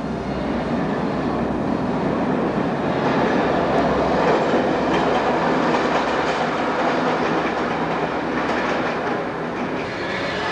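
Steady mechanical rumble with a hiss over it, swelling a little around the middle.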